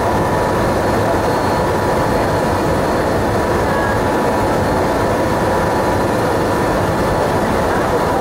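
Cabin noise of an Avro RJ100 airliner's Lycoming LF507 turbofan engines during the climb after takeoff: a steady, even noise with a faint steady whine.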